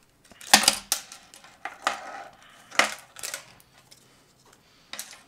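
Clicks and clatter of a hard plastic Raspberry Pi case and small USB receiver sticks being handled on a wooden desk as the case is taken apart. There are several sharp knocks, the loudest about half a second in, with softer handling rustle between them.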